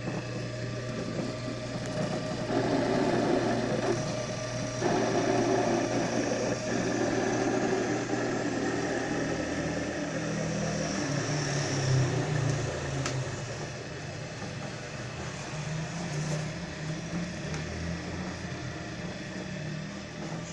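Bench drill running with a steady motor hum, louder for several seconds as the bit bores into a wooden board, with a short break about four seconds in.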